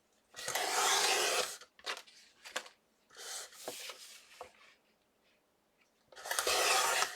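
Fiskars paper trimmer blade slid along its track, slicing through cardstock: two rasping cuts of about a second each, one just after the start and one near the end, with light paper-handling scrapes between.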